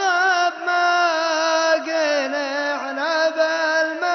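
Gulf Arabic shaila-style vocal chant: layered voices hold long, wavering melismatic notes over a steady drone.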